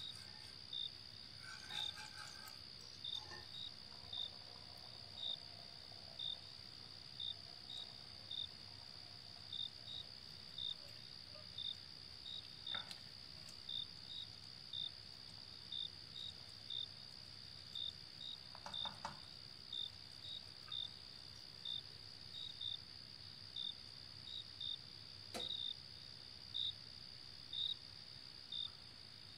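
A short, high-pitched chirp repeating about one and a half times a second over a steady high whine, with a few faint clicks and knocks in between.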